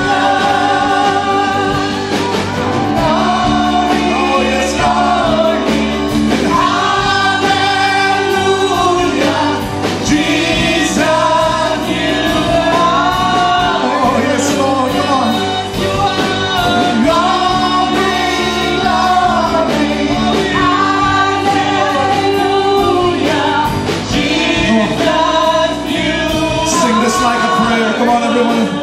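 Live contemporary worship music: several singers, men and women, singing together into microphones over a band with electric guitars and keyboard, continuously.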